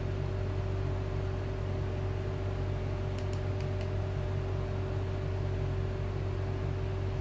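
Steady electrical hum and hiss, with a few faint clicks about three seconds in.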